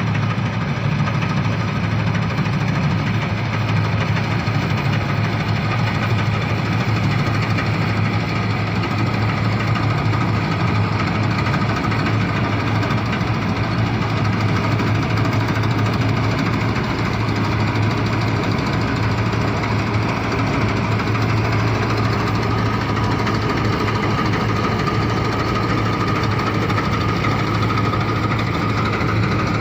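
Mahindra combine harvester's diesel engine running steadily, with a high whine that grows louder after about twenty seconds.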